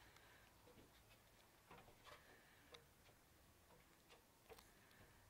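Near silence with faint, irregular wooden clicks from the turning windmill's wooden gearing, a big cogged gear wheel.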